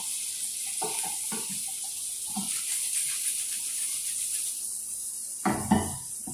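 Shrimp and chopped garlic frying gently in butter over low heat with a steady sizzle, while a wooden spatula knocks and scrapes in the pan a few times. About five and a half seconds in, a louder clatter as the shaken pan is set back down on the gas grate.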